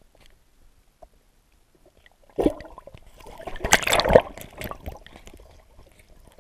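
Water sloshing and gurgling as it is churned around a submerged camera, muffled as heard under the surface. It starts suddenly about two and a half seconds in, is loudest around four seconds, then dies down.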